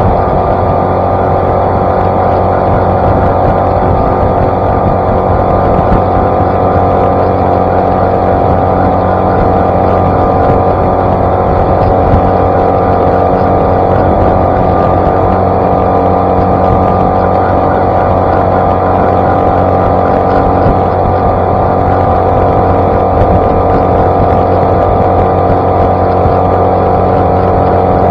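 Outboard motor of an Ankona Shadow Cast 16 skiff running steadily at speed, with water rushing and spraying off the hull.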